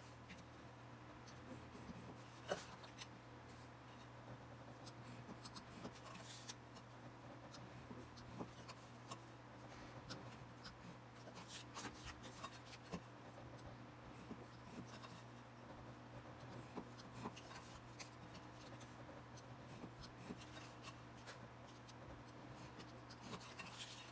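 Faint scratching strokes of a scoring tool drawn along a metal ruler across cardstock on a paper pad, with light taps and rustles as the small pieces and ruler are moved, over a low steady hum.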